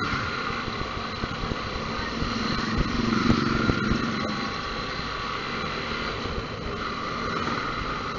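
Motorcycle engine running steadily while riding, heard from the bike's own camera, with road noise. The sound swells briefly about three seconds in.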